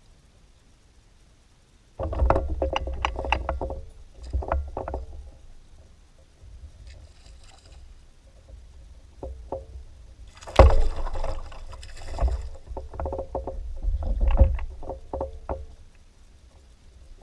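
Knocks, clatter and rubbing on a fishing kayak's hull, with deep bumping handling noise under them. The sounds start about two seconds in and come in clusters, with one sharper knock about halfway through.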